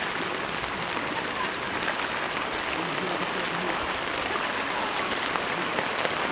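Heavy rain falling steadily, an even hiss with scattered small drop ticks.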